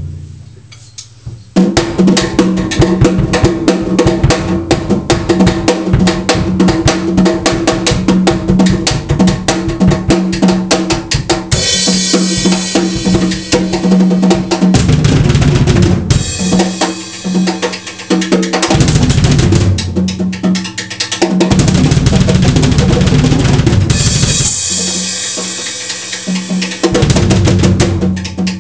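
Drum kit played fast and loud, with kick and snare hits and two spells of cymbal crashes.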